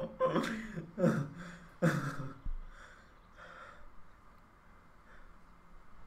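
A man laughing in three short bursts, then tailing off into breathy exhales and quiet snorts.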